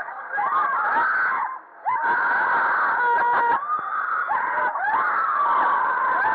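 Several riders screaming together as a pendulum fairground ride swings them, the high wavering screams overlapping, with a short break about a second and a half in.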